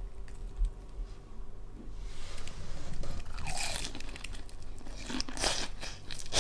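Someone biting into and chewing a piece of crispy karaage, Japanese fried chicken with a crumbly potato-starch coating, which crunches loudly. The crunches start about two seconds in and come thicker near the end.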